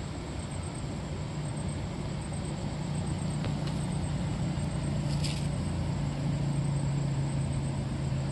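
A steady engine hum, one low pitch that grows louder from about two seconds in, over an even outdoor background noise. A short swish is heard about five seconds in.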